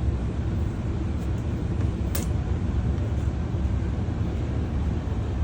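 Steady low background rumble, with a single sharp click about two seconds in.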